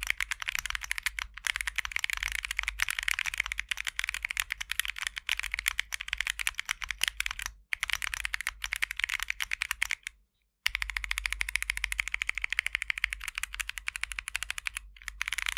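Rapid continuous typing on a mechanical keyboard with AKKO Creamy Purple Pro short-travel tactile switches, giving a sharp, high-pitched clack. The typing breaks off twice: briefly about two thirds of the way through, and for half a second a little later.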